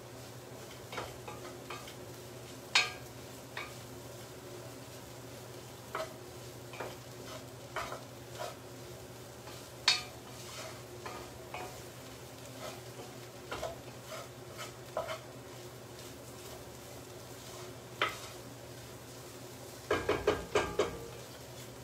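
A utensil scraping and knocking against a pot as flour and mushrooms are stirred constantly, over a faint sizzle. The flour is cooking into the fat to thicken the soup, and is kept moving so it doesn't stick and burn. The knocks come at irregular moments and bunch together near the end.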